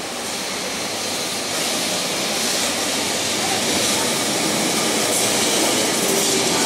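Carris historic tram running toward and past on its street rails, its wheel-and-rail rolling noise growing steadily louder as it approaches on the curve. A faint steady tone comes in near the end.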